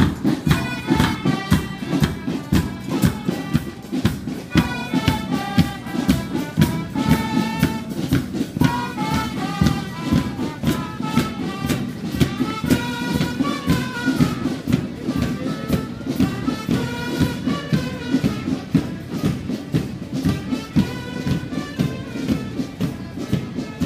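School marching band playing a tune on brass instruments over a steady marching drum beat.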